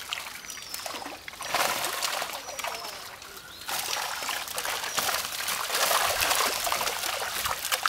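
Water splashing and trickling as a drag net is worked through shallow pond water, swelling in two long surges.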